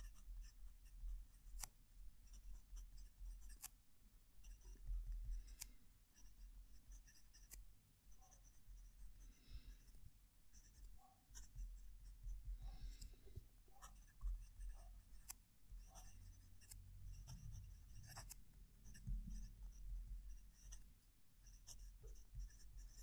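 Broad nib of a Ranga Model 5 fountain pen writing on lined paper, heard close up: a faint, irregular scratching of nib on paper that follows the strokes of the letters, with occasional sharp ticks. The nib runs smoothly with a little feedback and does not scratch.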